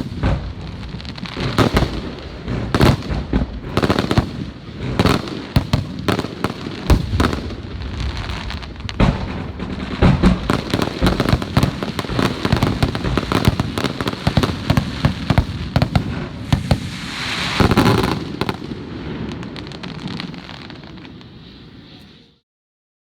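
Aerial fireworks display: a rapid, continuous run of shell bursts and crackling, with a big loud burst about eighteen seconds in. It then dies away and cuts off abruptly near the end.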